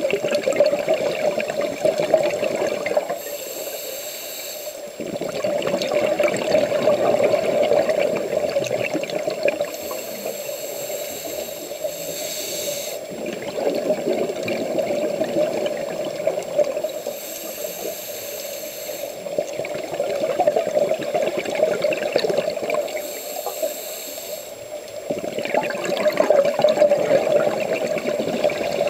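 Underwater scuba breathing through a demand regulator. Long spells of exhaled bubbles bubbling alternate with shorter inhalation hisses, about one breath every seven seconds.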